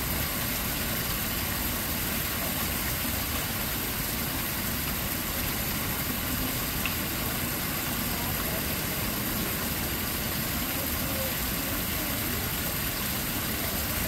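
A vehicle engine running steadily, a constant low rumble and hiss with no changes.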